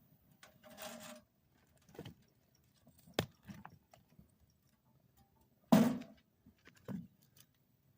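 Clanks and knocks of firewood being loaded into a stainless-steel tent wood stove and its metal door being handled: a handful of separate clanks, the loudest about six seconds in.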